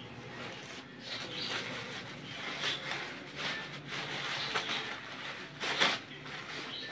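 Crumpled newspaper packing rustling and crinkling as it is handled and pulled out of a cardboard box, with a brief louder crackle near the end.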